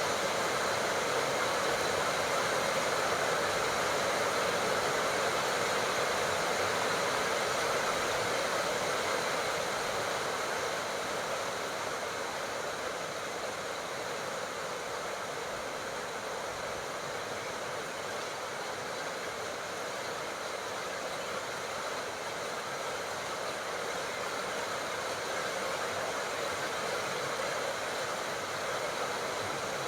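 Steady heavy tropical rain falling, an even hiss without distinct drops standing out, easing slightly about a third of the way through.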